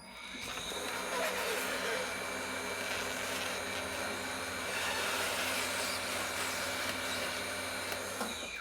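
Tire changer machine running steadily with a low motor hum for about eight seconds, then stopping suddenly near the end.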